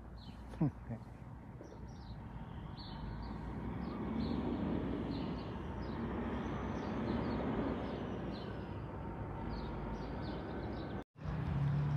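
Small birds chirping now and then over a steady rush of traffic and road noise that swells a few seconds in.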